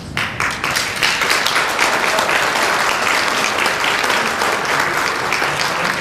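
Audience applauding: a few scattered claps that swell into full, steady applause about a second in.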